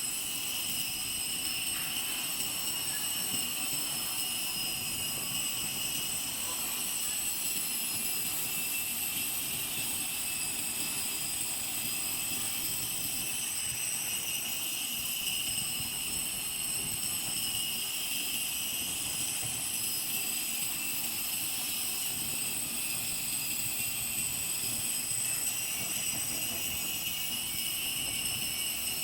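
Grinding on a lathe: the grinder runs steadily against the workpiece, a constant high whine of several tones over a rough lower rumble, with no let-up.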